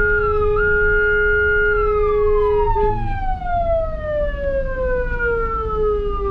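Ambulance electronic siren holding one high note, with a brief dip about half a second in, then sliding steadily down in pitch for about four seconds as it winds down, over the low rumble of the vehicle.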